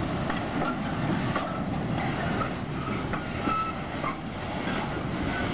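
A freight train of sliding-wall wagons rolls past: a steady rumble of steel wheels on the rails, with short, high wheel squeals now and then.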